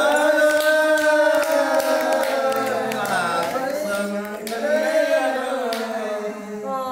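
A man singing a Thái folk song (hát Thái) unaccompanied: one long drawn-out phrase of held, wavering notes that slide down about halfway through and rise again.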